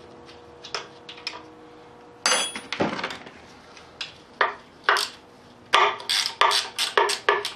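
Metal wrench knocking against the lifter side cover of a Cummins diesel engine block to break it loose: scattered metallic clanks, then a quicker run of knocks, about four a second, near the end.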